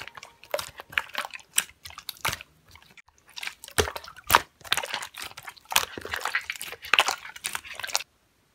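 Slime being squished and worked by hand, giving an irregular run of wet pops, clicks and crackles that stops suddenly near the end.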